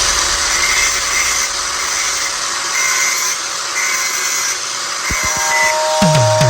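Angle grinder running with a steady hiss that starts abruptly. Music comes in near the end.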